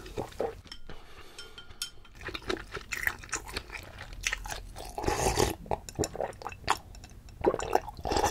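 Close-miked drinking of udon broth straight from a glass bowl: sips and swallows with small wet mouth clicks, and louder swells of drinking about five seconds in and again near the end.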